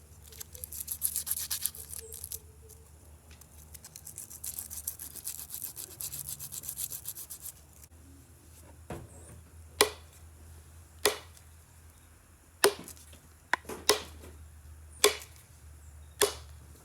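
Rapid scraping strokes of a rasp or file shaping a wooden hatchet handle, in two spells, followed by sharp knocks about once a second as the hatchet head is driven down onto the handle.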